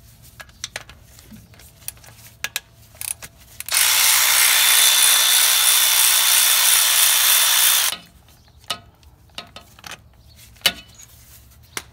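Cordless power ratchet with a 13 mm socket running for about four seconds, with a steady high whine, backing out the bolt that holds the transmission cooler line metering block to the transmission. Light clicks and taps of the socket being fitted on the bolt come before and after.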